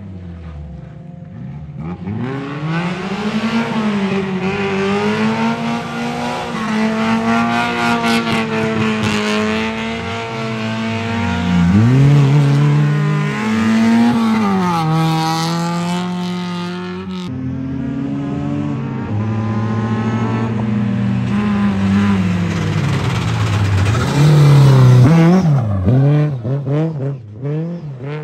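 Rally car engines revving hard, the pitch climbing and dropping with throttle and gear changes as the cars pass. The sound changes abruptly about two-thirds of the way through, and a second run builds to its loudest near the end before falling away.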